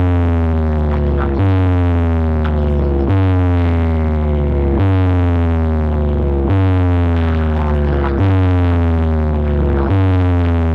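A competition DJ speaker stack of bass cabinets and horn speakers playing a repeating electronic test tone. A synth note falls in pitch over a steady heavy bass, restarting about every 1.7 seconds.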